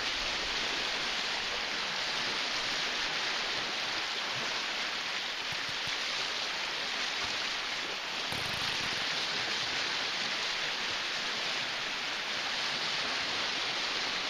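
Steady rushing wash of lake waves against a rocky shoreline.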